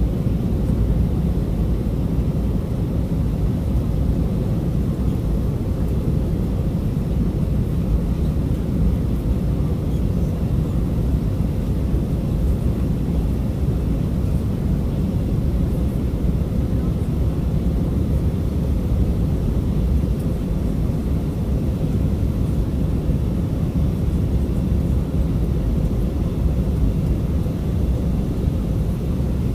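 Steady low rumble of an Airbus A319's jet engines and airflow heard inside the passenger cabin, even in level with no rise or fall.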